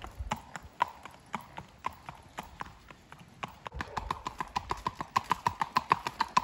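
Gaited horse's hoofbeats on a paved path: sharp, crisp clip-clops, uneven at first, settling about two-thirds in into a fast, even beat of about six steps a second.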